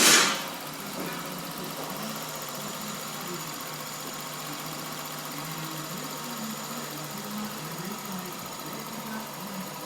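Volkswagen Golf 1.4 TSI petrol engine idling steadily, with a thin high whine above the hum. A short loud burst of noise comes right at the start.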